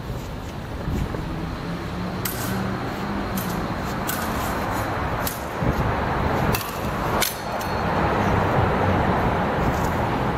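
Steady outdoor rumble like distant road traffic, with a few sharp clicks or taps scattered through it.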